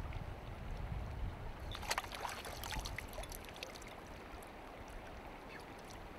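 Shallow river running over stones, with a brief flurry of splashing about two seconds in as a brown trout is let go from the hands and kicks away.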